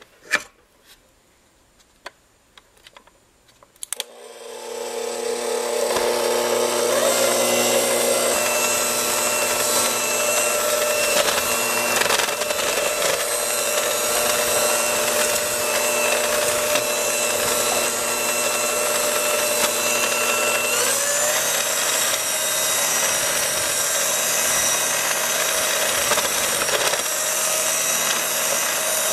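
Electric stand mixer beating cake batter: a few clicks, then the motor starts about four seconds in and runs steadily, its tone stepping up a little about two-thirds of the way through.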